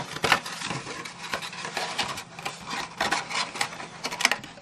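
Cardstock gift box being folded up by hand, its sides pushed in: card rubbing and scraping with a string of short crisp crackles and taps.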